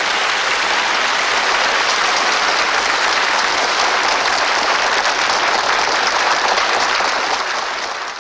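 Large audience applauding steadily, a dense crowd of clapping hands, fading down near the end.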